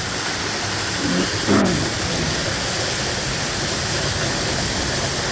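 Rain-swollen waterfall and heavy rain, a steady, even rush of falling water.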